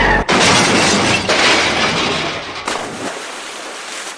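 Loud crashing, shattering noise that starts abruptly about a quarter second in and runs for about two and a half seconds before trailing off.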